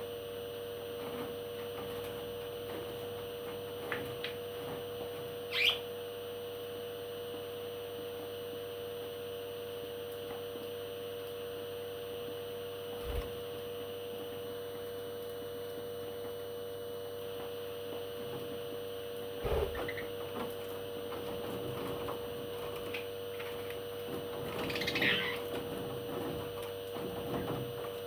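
Pet parrot giving two brief high chirps, one about six seconds in and a longer one near the end. A steady electrical hum runs underneath, with a few soft knocks.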